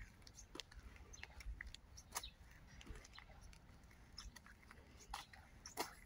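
Faint, irregular sharp clicks and ticks over near silence, a couple of them louder about two seconds in and again near the end.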